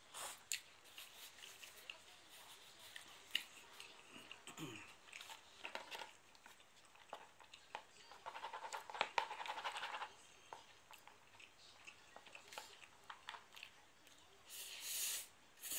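Wooden chopsticks clicking and scraping against a plastic instant-yakisoba tray as the last noodles are shovelled into the mouth, with a quick rattle of scraping a little past the middle and a short hissy scrape near the end. Quiet chewing and a brief low hum sit between the clicks.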